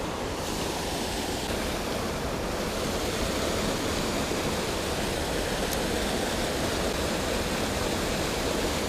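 Creek water rushing steadily, with a low wind rumble on the microphone.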